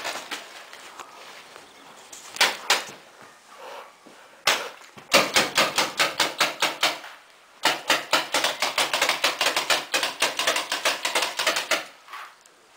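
Paintball markers firing. There are a few single shots, then two long rapid volleys of about eight shots a second, starting about five seconds in and again about seven and a half seconds in.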